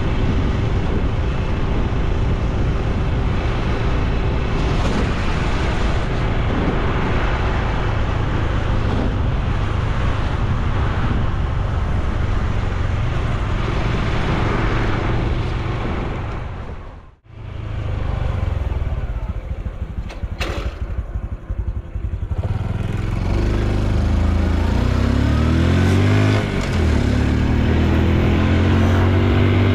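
Honda Super Cub C125's single-cylinder engine and exhaust while riding, with wind rush, steady at first. The sound drops out briefly about halfway. In the last few seconds the engine note climbs as the bike pulls away, falls back at a gear change, then climbs again.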